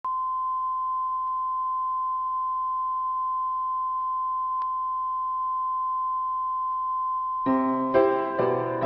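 Steady single-pitch test tone that holds without change, then gives way to piano music about seven and a half seconds in.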